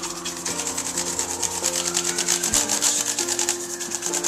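An old toothbrush scrubbed quickly back and forth along the crevices of a white plastic MacBook's casing: a scratchy brushing of many short strokes a second. Background music plays with steady held notes.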